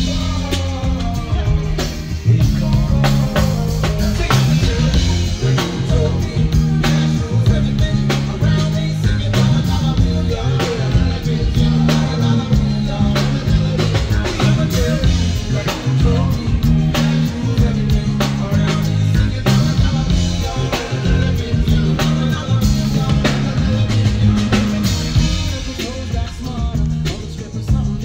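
Live band playing: drum kit, bass guitar and keytar over a steady beat with a prominent bass line, and a singer's voice through a microphone on top. The playing eases off slightly near the end.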